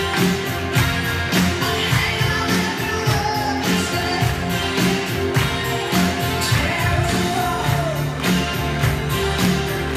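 Upbeat pop-rock song with singing, played loudly over a hall's sound system, with a standing crowd clapping along to its steady beat.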